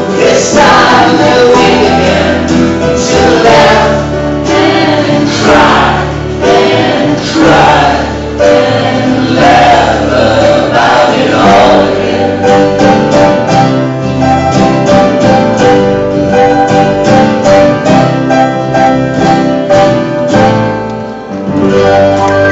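Live acoustic band: acoustic guitars strummed over an upright double bass, with several voices singing together for about the first half. The voices then drop out and the instruments play on in a steady strummed rhythm.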